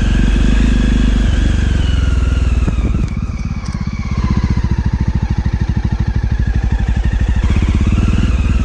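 Motorcycle engine running as the bike is ridden. About three seconds in the level dips briefly, and then the engine's steady, even beat comes through plainly.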